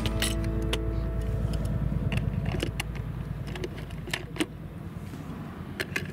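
Die-cast toy cars clicking and clinking against the plastic shelves of a toy truck's carrying case as they are set into their slots, a handful of sharp clicks over a low steady rumble.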